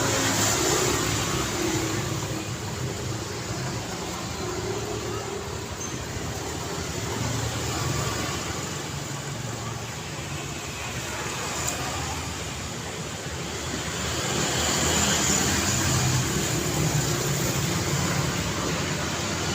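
City street traffic: a continuous wash of cars driving past, swelling as vehicles go by, loudest in the last few seconds.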